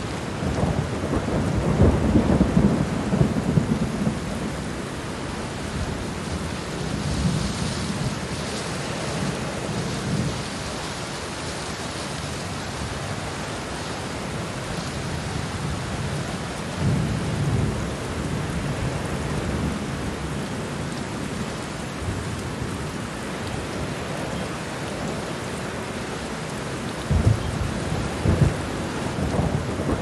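Thunderstorm: steady heavy rain hissing, with several low rolls of thunder rising and fading, the strongest in the first few seconds.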